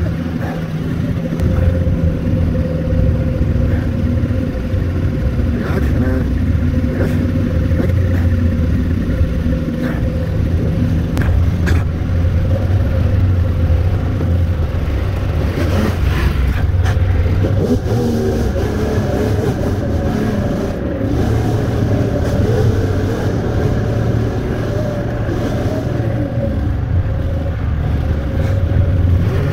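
Polaris snowmobile engine running steadily while the sled is ridden over snow, with a slight change in pitch about halfway through.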